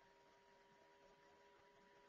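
Near silence, with only a faint steady tone underneath.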